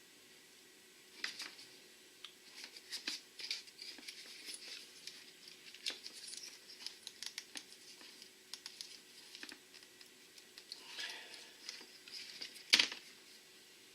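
Irregular small clicks, scratches and rustles of hands handling plastic parts and cable, with one sharp knock near the end.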